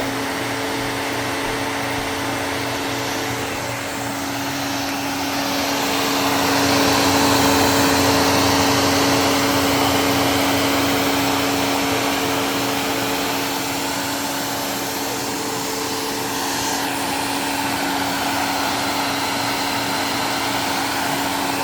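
Dust Care Evolution Prestige 6502Z upright vacuum cleaner running, with a steady motor tone over a rush of air. It gets louder for a few seconds about six seconds in.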